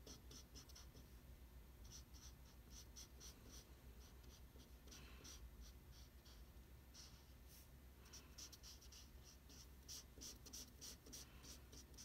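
Faint scratching of a green felt-tip marker on paper as an area is coloured in with quick back-and-forth strokes, about four or five a second, with two short pauses.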